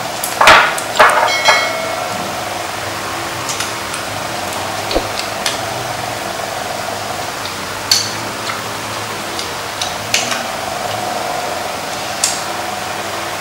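Light clinks of chopsticks and spoons against bowls and a metal pan during a meal, scattered every second or two over a steady background hum. In the first second and a half come three louder sharp clicks, the last with a short ringing tone.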